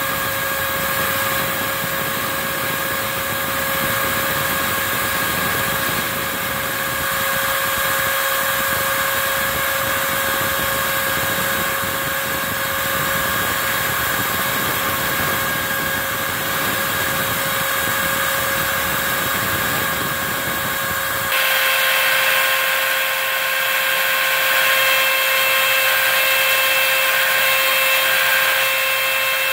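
Router spindle of a home-built CNC machine running at speed, a steady whine over a rushing noise, as its bit cuts foam, with the dust-extraction vacuum drawing through its hose. About three-quarters of the way through, the sound changes abruptly: the low rumble drops away and higher whine tones come in.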